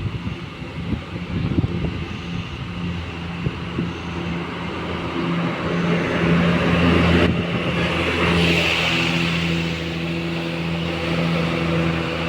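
A bus's engine running close by. It settles into a steady hum from about five seconds in, and a rush of noise swells and fades around eight seconds in.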